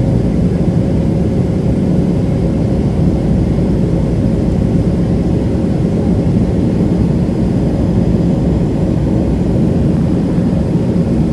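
Jet airliner cabin noise heard from inside the cabin: a steady low rumble of engines and airflow, with a faint steady hum running through it.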